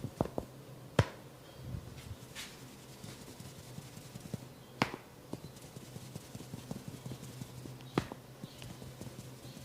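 Percussive head-and-neck massage: sharp single taps or slaps, irregularly spaced, the loudest about a second in and near the end, with softer ticks between, over a low steady hum.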